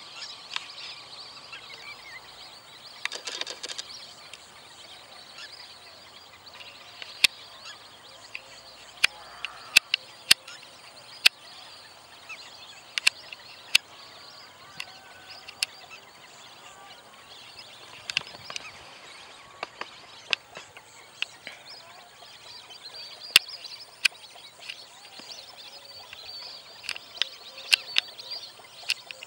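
Many birds calling over a steady high hiss, broken by sharp clicks at irregular intervals, about two dozen of them; the clicks are the loudest sounds.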